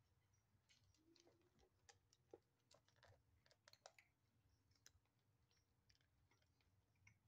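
Faint, irregular crunching and clicking of two kittens chewing dry kibble from plastic bowls.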